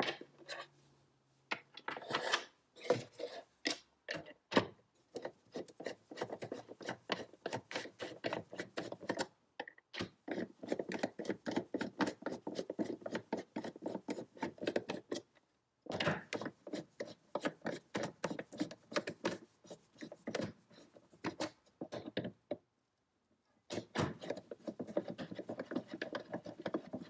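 Hand screwdriver driving the corner screws back into a plastic generator inlet box, a rapid clicking and scraping that comes in several runs with short pauses between screws.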